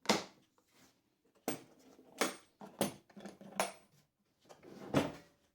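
A router's carrying case being unlatched and opened: a series of about seven sharp clicks and knocks spread a second or so apart, the case's catches and lid being handled.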